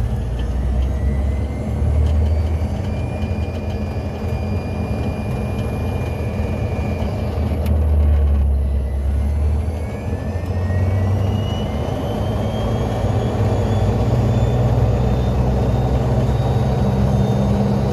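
Polaris Ranger EV electric utility vehicle driving on pavement: a steady low rumble of tyres and wind with a thin drivetrain whine that rises in pitch about halfway through as it picks up speed.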